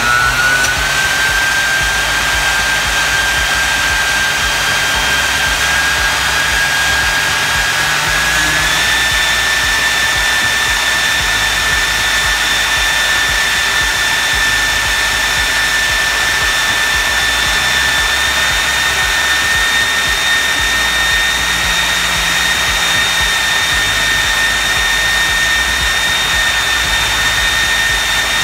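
3D-printed 120 mm electric ducted fan running steadily: a rush of air with a high whistle that steps up in pitch about eight seconds in and again slightly later. The builder puts the whistling down to a rotor that needs more balancing.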